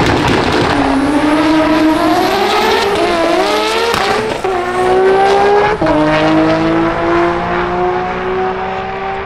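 Drag car accelerating hard down the strip, its engine note climbing steadily and dropping abruptly at gear changes about four and a half and six seconds in.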